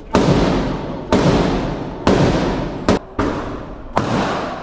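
Gunshots at an indoor shooting range: about six shots roughly a second apart, two coming close together about three seconds in, each followed by a long echoing decay.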